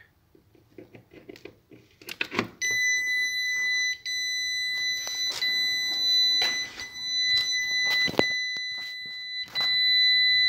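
Chinese MPPT solar inverter's alarm buzzer. A few clicks come as it is plugged into the mains, then about two and a half seconds in a high-pitched beep starts and keeps going with brief breaks. This sequential beeping is the inverter's fault signal that no battery is connected.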